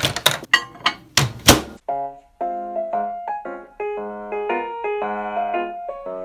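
A quick run of sharp knocks or thunks for about the first two seconds, the last ones the loudest, then a light piano background tune starts up and plays on.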